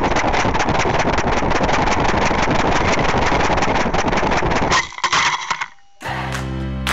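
Wind rushing and buffeting over a descending high-power rocket's onboard camera, with dense rattling, cutting off about five seconds in as the rocket reaches the ground. Strummed guitar music starts about a second later.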